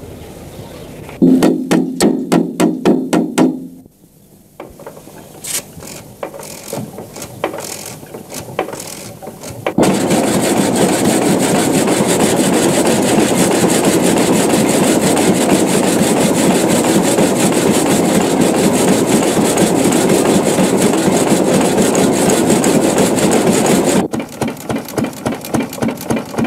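Homemade belt-driven brick-making machine running: rapid rhythmic pounding, a stretch of lighter irregular clicking, then a long steady loud scraping noise, with the rhythmic pounding coming back near the end.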